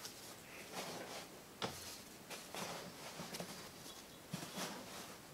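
Quiet handling noises of yo-yos and cloth yo-yo pouches being sorted in a cardboard box: soft rustling and scuffing, with one sharp click about one and a half seconds in.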